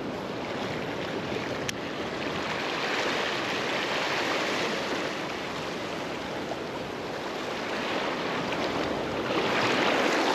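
Small sea waves washing and splashing over a shallow coral reef, a steady rush of water that grows a little louder near the end.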